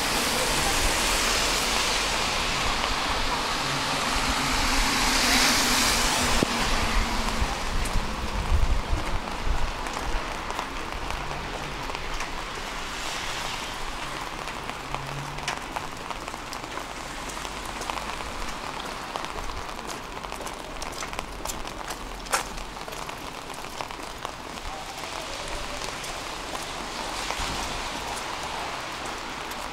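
Rain on a city street: a steady hiss with scattered light drip ticks. In the first several seconds a vehicle passes on the wet road, its tyre hiss swelling and then fading.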